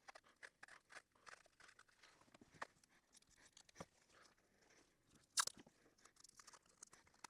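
Faint crinkling and small irregular clicks of wrapping being wound around a pocket knife's handle to protect it, with one louder crackle about five and a half seconds in.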